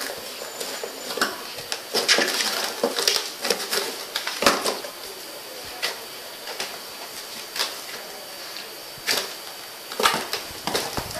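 Cardboard box bumped and pushed about on a tiled floor by a dog's nose: irregular knocks, scrapes and rustles.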